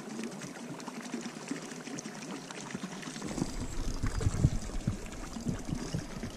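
Water lapping and trickling against the hull of a small boat in irregular little splashes. A low rumble joins about three seconds in.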